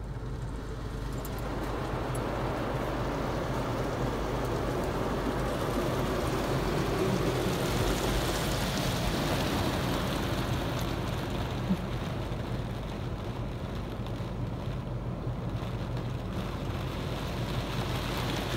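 Water spray from the WashTec SoftCare 2 Pro car wash gantry hitting the car's roof and windows, heard from inside the cabin as a steady rain-like hiss that builds over the first couple of seconds and eases slightly later, over a low steady hum.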